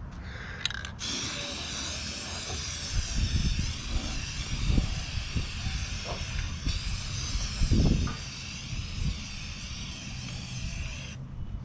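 Aerosol spray can of Rust-Oleum paint and primer hissing in a long spray. It starts about a second in, breaks off for a moment partway through, and stops near the end. Gusts of wind rumble on the microphone.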